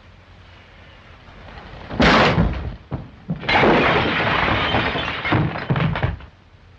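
A sudden crash about two seconds in, then a longer clattering crash of a man falling into furniture, with a chair toppling and dishes and glass breaking. It lasts nearly three seconds.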